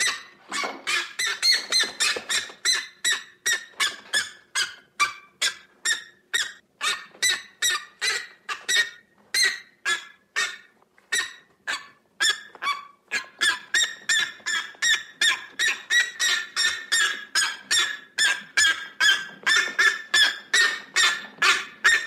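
White goose honking in a rapid, steady run of short honks, about three a second, with a brief pause around the middle.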